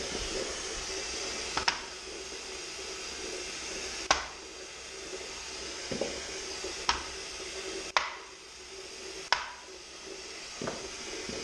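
Chef's knife cutting peeled potatoes into big chunks on a stone cutting board, the blade meeting the stone in about seven sharp clacks at uneven intervals, over a steady low hum and hiss.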